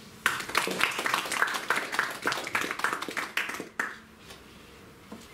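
Audience applauding after a talk: a run of clapping that starts a moment in, lasts about three and a half seconds and stops fairly abruptly.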